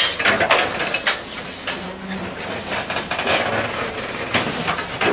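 Irregular metallic clanking and knocking, with many sharp strokes over a busy, continuous noise: the sound of railway wagons and track work at the site.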